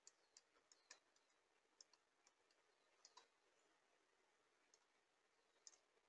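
Near silence broken by about eight faint, irregular clicks, most of them in the first second and a half, from the computer input device as handwriting is drawn onto the on-screen slide.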